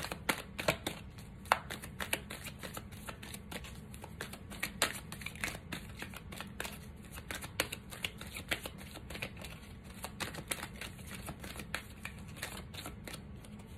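A deck of cards shuffled by hand: a long run of quick, irregular card flicks and snaps, over a faint low hum.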